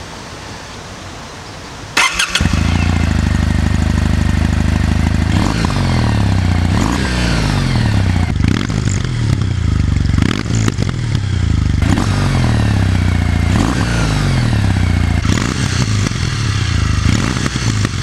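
Kawasaki W800 CAFE's air-cooled 773 cc vertical-twin engine, 360° crank, starting about two seconds in with a sharp click and quick catch, then idling steadily. From about five seconds in the throttle is blipped repeatedly, the revs rising and falling every second or two, heard from the twin chrome mufflers.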